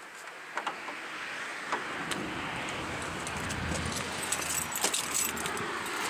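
A bunch of keys jangling in light metallic clinks, mostly in the second half, over steady rustling noise from handling and moving about.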